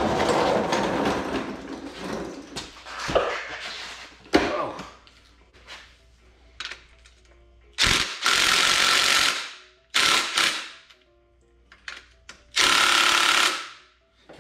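Cordless impact driver hammering the main bearing cap bolts loose on a Ford 5.4 V8 block, in three runs: one about two seconds long, a short one, then one just over a second. Before that, clattering and a few sharp knocks of tools being handled.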